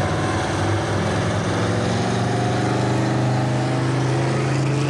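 An engine running steadily at high revs, holding one pitch, with a broad background hiss.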